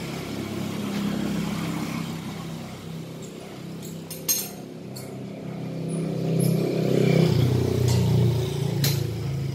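A motor vehicle engine running, growing louder from about six seconds in and easing off near the end, with a few sharp clicks around four seconds and again near the end.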